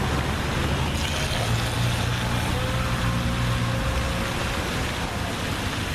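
A boat motor running steadily, a low even hum over a haze of water and wind noise.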